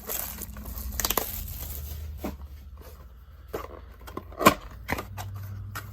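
Packaging of a box of trading cards being torn open by hand: plastic wrap crinkling and cardboard tearing, with a few sharp snaps, the loudest about four and a half seconds in.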